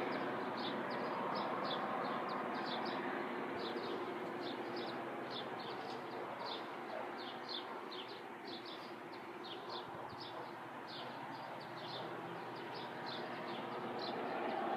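Small birds chirping in quick, irregular short calls, a few a second, over a steady low rumble that eases slightly midway and swells again near the end.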